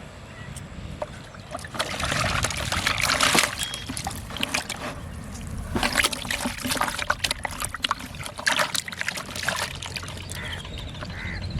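Water splashing and trickling in irregular spells, loudest from about two to three and a half seconds in and again from about six to nine seconds in.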